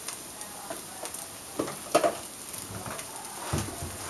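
An omelet sizzling steadily in a nonstick frying pan over a gas flame as it finishes cooking on its second side. A few short knocks come through the middle; the loudest is about two seconds in.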